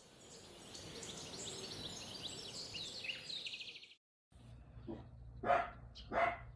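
Birds chirping and trilling over a steady high hiss of insects. After a break about four seconds in, a dog barks or yips three times in quick succession.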